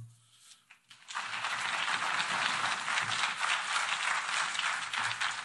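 Audience applauding, starting about a second in after a moment of near silence.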